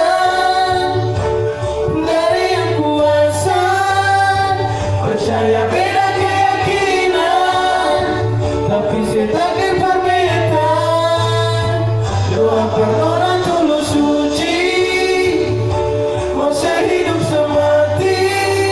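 Singing with backing music: voices carry a slow melody over held bass notes.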